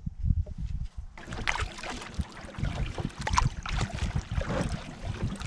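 Canoe paddle strokes: water splashing and dripping off the blade, with small knocks, starting about a second in, over a low rumble.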